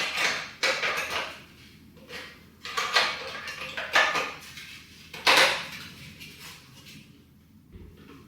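The two half-circle pieces of a tower fan's base clacking and scraping against each other as they are fitted together, about half a dozen separate knocks and rattles.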